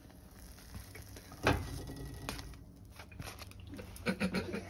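Kitchen handling as a quesadilla is moved from a frying pan onto a plastic plate: one sharp knock about a second and a half in, then a lighter click and a run of small clicks and taps near the end.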